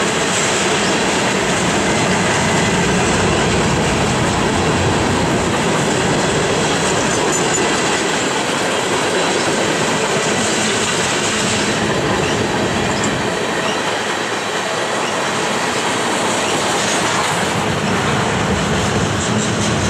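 Freight cars of a manifest train rolling steadily past at track side: a continuous loud rumble and clatter of steel wheels on the rails.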